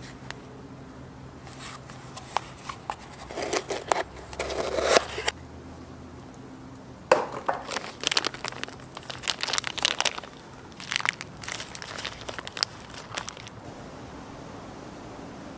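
Packaging crinkling and rustling as it is handled and opened, in three spells with sharp crackles and a quieter pause between each.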